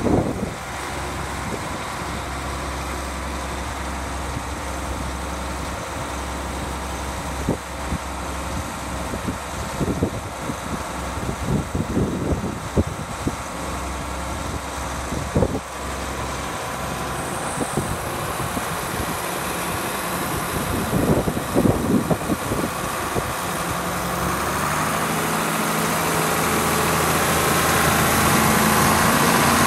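John Deere 4440's turbocharged six-cylinder diesel idling steadily, with scattered crunching footsteps in snow. The engine gets louder near the end, heard close beside the engine.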